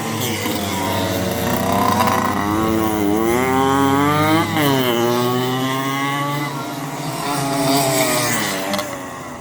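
Go-kart engines running at speed, their pitch climbing and falling as the karts accelerate and slow; more than one engine is heard, with one pitch peaking and dropping sharply about four and a half seconds in.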